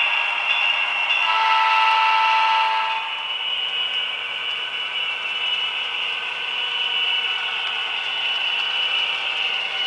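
Sound-equipped Atlas HO-scale CN GP40-2W model locomotive, its small onboard speaker playing a diesel engine running. About a second in, one horn blast of nearly two seconds sounds over it.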